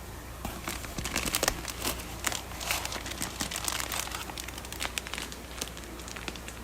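Plastic fish-shipping bags crinkling and crackling as they are handled, in irregular bursts that start about half a second in and die away near the end.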